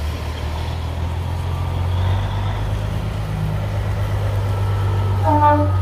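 Diesel engine of a long-hood Peterbilt semi tractor running as the truck pulls slowly through a parking lot, a steady low rumble. A short horn toot sounds near the end.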